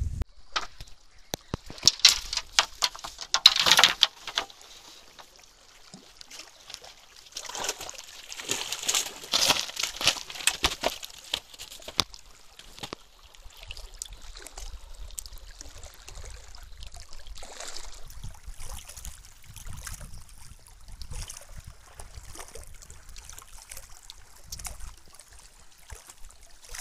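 Water splashing and sloshing in two loud bursts, about two seconds in and again around eight seconds in, with fainter trickling and sloshing between and after.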